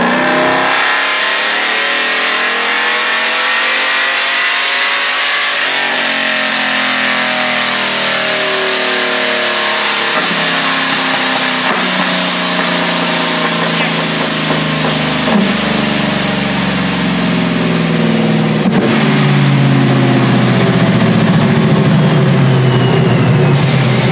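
Supercharged stock 5.3-litre V8 of a Chevrolet Silverado making a full-throttle pull on a chassis dyno with nitrous. The engine note and the ProCharger's whine climb in pitch as the revs rise.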